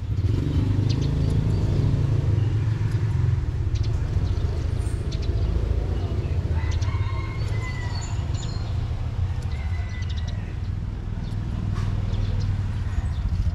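Steady low rumble of street traffic, with a few short bird chirps about halfway through.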